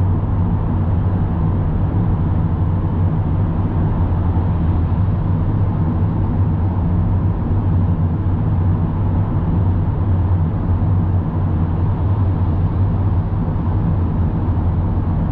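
Steady road and engine noise of a car driving at about 70 km/h through a road tunnel, heard from inside the cabin as an even low rumble.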